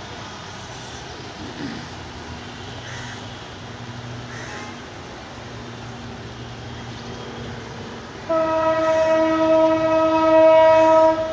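A loud horn sounds about eight seconds in: one steady, held note, lasting about three seconds, that cuts off abruptly. Before it there is a low steady hum.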